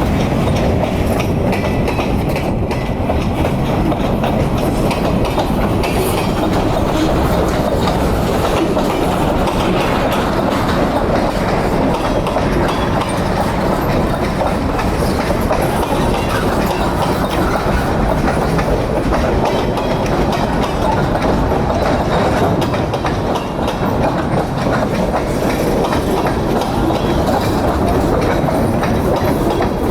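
Canadian National freight train rolling past, a loud, steady run of wheel-on-rail noise from the passing cars.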